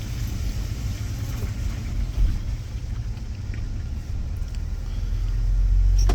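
Low rumble of a vehicle's engine and tyres heard from inside the cabin as it creeps forward, growing louder over the last couple of seconds. A short sharp click comes just before the end.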